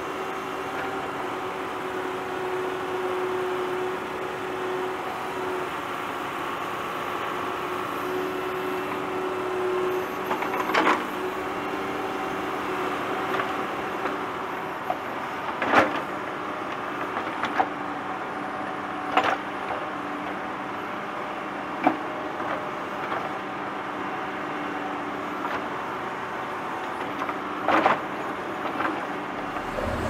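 Tractor engine running steadily while digging, with sharp knocks every few seconds, the loudest about sixteen seconds in.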